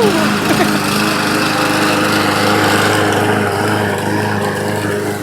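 A small motor running with a steady hum and a noisy whir.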